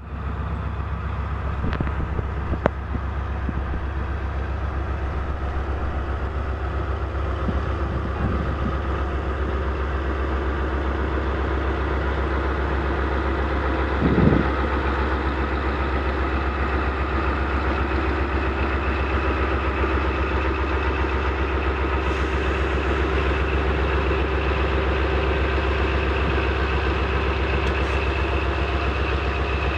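Pakistan Railways diesel-electric locomotive's engine running steadily with a deep hum, with one short, louder burst about halfway through.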